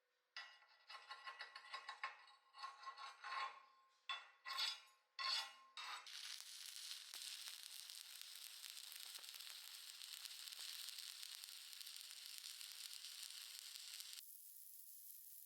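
Stick-welding arc on a 3/32-inch 7018 low-hydrogen rod at about 90 amps: first a run of short, broken crackling bursts as the arc is struck and re-struck, then from about six seconds in a steady crackling sizzle as the arc runs. Near the end it drops to a fainter steady hiss.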